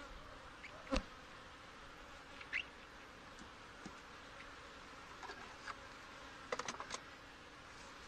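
Honey bees buzzing steadily over an open hive's frames, with a few sharp knocks and clicks from the hive tool and wooden frames being worked: a single loud knock about a second in and a quick run of clicks near the end.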